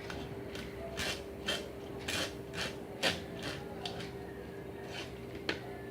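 Boiled mandarins and garlic being mashed and scraped against a strainer to push the juice through: a run of short, rough scraping strokes, roughly two a second.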